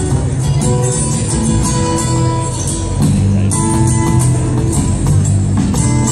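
Live band music with guitar and drums, recorded from among the audience in the hall.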